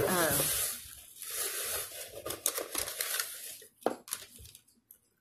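Plastic shopping bag and paper crinkling and rustling as items are handled. A short squeak comes at the start, and two sharp clicks come about four seconds in.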